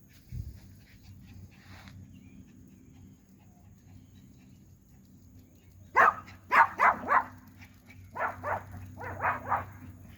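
Dog barking in two short runs of quick barks, about four and then about five, after a quiet first half.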